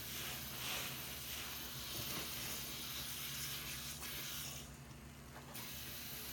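Tap water running into a sink of soap foam while a large soapy sponge is squeezed and scrubbed, giving wet squishing sounds. About four and a half seconds in, the hiss of the water dulls for about a second, then returns. A faint steady hum lies underneath.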